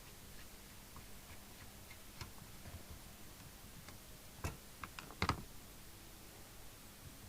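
Scattered light clicks and taps of small tools and radio parts being handled on a workbench, with a few sharper clicks about four and a half and five seconds in, over a faint steady hum.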